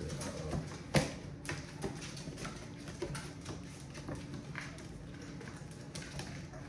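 Scattered light taps and clicks, with one sharper knock about a second in.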